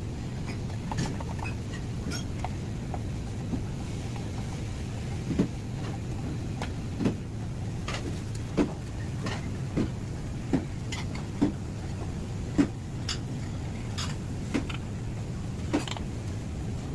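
Steady low hum at a dosa griddle station, with short sharp knocks or clinks about once a second from about five seconds in.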